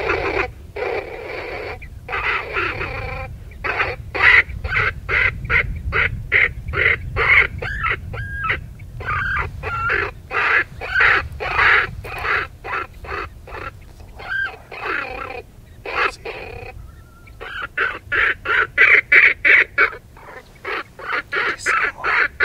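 Electronic predator caller playing an animal distress call: short cries repeated rapidly, about three to four a second, with a few brief pauses.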